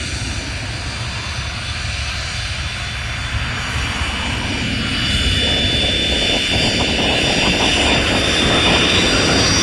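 Small business jet's twin Williams FJ44 turbofans running with a low rumble, growing louder about halfway through as a high whine comes in and strengthens.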